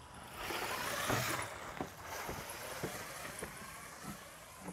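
Grass and weeds rustling, with a swell of swishing in the first two seconds, then soft footfalls about twice a second on a grassy path.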